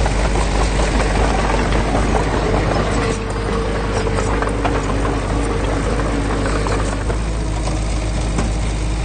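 Heavy construction machine's diesel engine running steadily, with a strong low hum.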